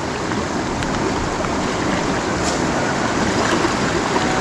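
Shallow, rocky river flowing steadily: a constant, even rush of water over stones and riffles.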